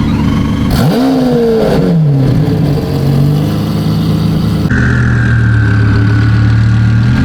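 Car engine revving: the pitch climbs and falls back about a second in, then the engine settles into a steady drone.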